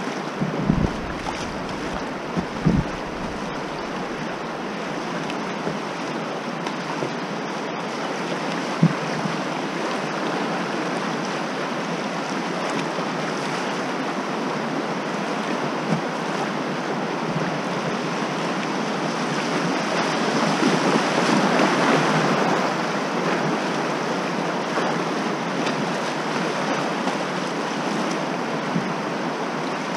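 Whitewater of a river rapid rushing and splashing around a kayak, a steady noise that swells louder about twenty seconds in. A few dull knocks sound in the first few seconds.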